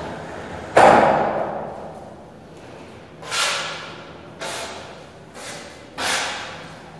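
A sudden loud knock about a second in that rings on in a bare, echoing room, followed by four shorter swishing or knocking sounds over the next few seconds.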